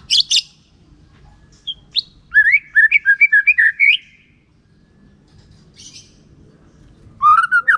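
White-rumped shama singing: two sharp high notes at the start, then a quick run of rising whistled notes a couple of seconds in, and another fast phrase starting near the end.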